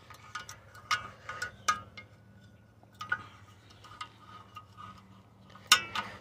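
Screwdriver clinking and scraping against the steel hold-down pin and spring of a 2003 Ford Explorer's parking-brake shoe while prying to free the pin. The clinks are sharp and irregular, each with a brief metallic ring, and the loudest comes just before the end.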